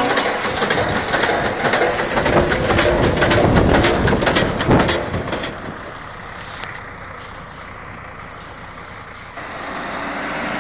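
Tractor and forage wagon machinery running while the wagon discharges chopped silage, loud with many sharp knocks and rattles. Past the middle it drops to a quieter, distant tractor engine, then grows louder again near the end as a loader tractor runs close by.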